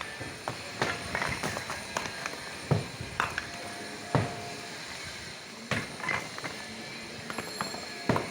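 Irregular sharp knocks and thuds, roughly one a second, over steady background noise.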